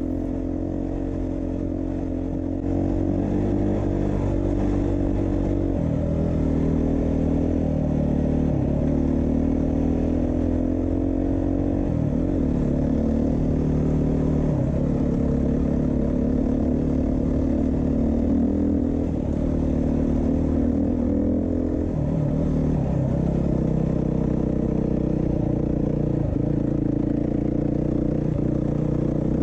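Beta 390 RR-S dual-sport motorcycle's single-cylinder four-stroke engine under way, its pitch repeatedly climbing as the throttle opens and falling back at each shift or roll-off.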